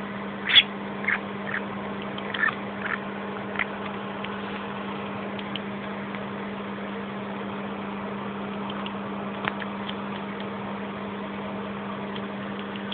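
Masked lovebird making small sleep noises that its owner calls snoring: about six short, high squeaks in the first four seconds and a faint tick or two later on. Under them runs a steady low mechanical hum.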